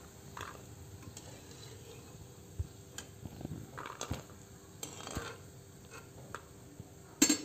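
Perforated metal skimmer scraping and clinking against the frying pan and plate as fried pakoras are lifted from the oil and tipped out, a scatter of light knocks and scrapes. One louder metallic clatter near the end.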